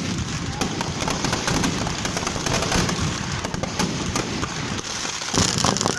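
Firecrackers and fireworks going off in a rapid, continuous crackle of many small bangs, growing louder near the end.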